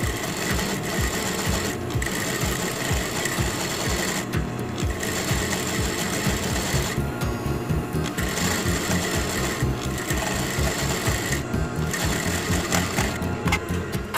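Sewing machine running steadily, stitching a narrow rolled hem through a hemmer foot, with a fast, even beat of needle strokes.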